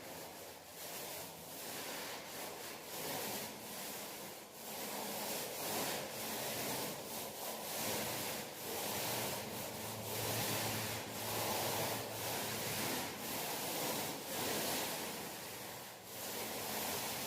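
Paint roller being rolled over a wall in repeated back-and-forth strokes, about one a second, making a steady rubbing, swishing noise.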